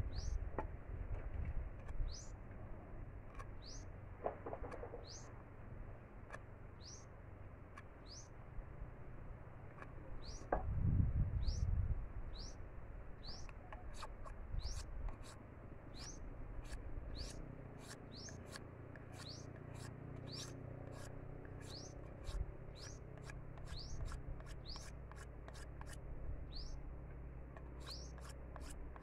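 A bird repeats a short rising chirp, every second or two at first and about twice a second in the second half, over faint scraping of a bolo knife shaving a bamboo stick. A low thump about eleven seconds in is the loudest sound.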